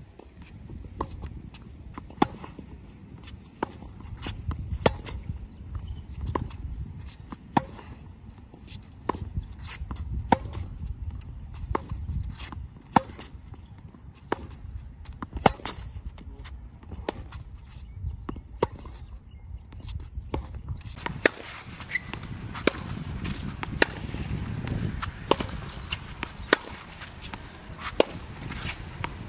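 Tennis balls struck back and forth with rackets in a rally: sharp pops about every second or so, the nearer player's strokes the loudest, with ball bounces and footsteps on the hard court between them. Wind rumbles on the microphone for the first two-thirds.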